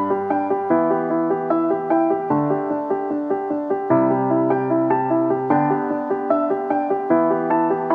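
Background piano music: a steady run of evenly spaced notes over held low notes.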